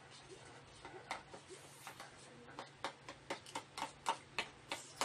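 Eating noises at a table: a string of short, sharp clicks, sparse at first and then about three a second from about halfway on.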